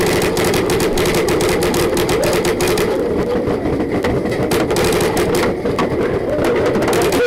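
Paintball markers firing around the field, a dense, irregular stream of rapid pops.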